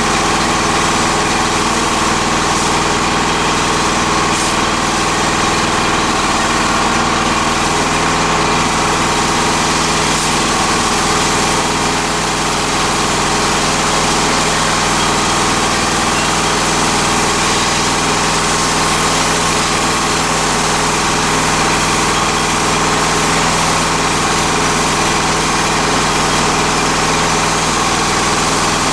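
Engine of a freshly rebuilt MI-T-M CW-3004 pressure washer running steadily at a constant speed.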